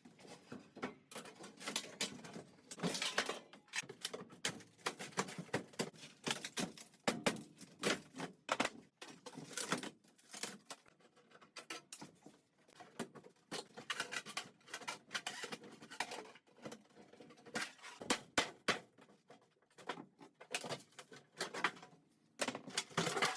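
Irregular clicks, knocks and light rattles of hand work inside a small caravan: fittings and panels being handled and loosened during demolition of the interior.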